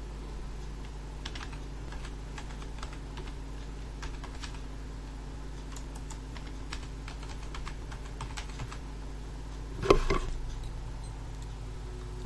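Computer keyboard typing: scattered key clicks as a web address is typed in, with one louder knock about ten seconds in.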